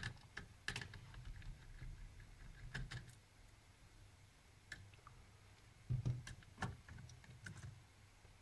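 Faint, scattered clicks and light knocks of small netbook parts being handled during disassembly. The knocks come in clusters, with a few louder taps around the middle.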